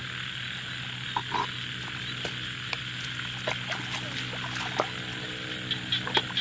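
Frogs calling in a steady chorus over a continuous high hiss, with scattered splashes and squelches of hands groping in mud and shallow water. Near the end, a rapid pulsed call repeats several times a second.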